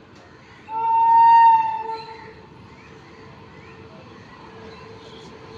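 Locomotive horn of an approaching Indian Railways train: one high-pitched blast lasting about a second and a half, starting a little under a second in. Afterwards the train's running noise builds faintly.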